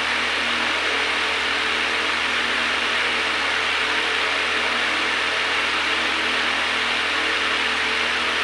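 A steady machine whir with a hiss, unchanging throughout.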